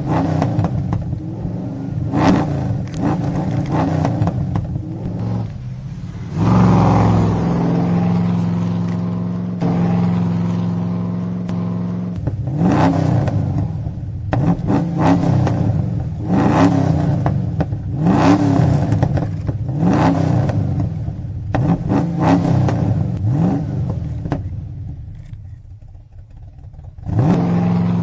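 Car engine revving again and again, each rev a rising whine, after a stretch of steady idling.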